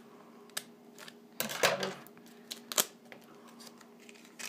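Scissors snipping open a trading-card booster pack: a run of sharp clicks and plastic crinkling, with a louder crinkly burst about a second and a half in and a sharp snip near the three-second mark.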